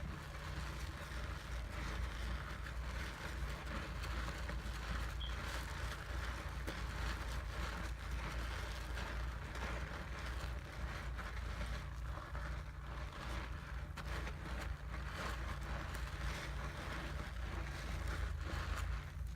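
Close-miked soap lather being worked up: a continuous dense crackle of fine wet clicks, over a steady low hum.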